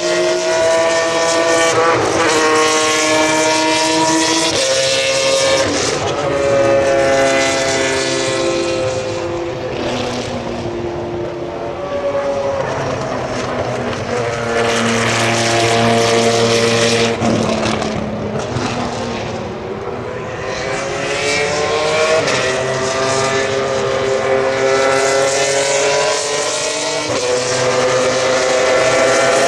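Racing car engines at speed, several cars passing one after another. The engine note climbs as they accelerate and drops in steps as they change gear.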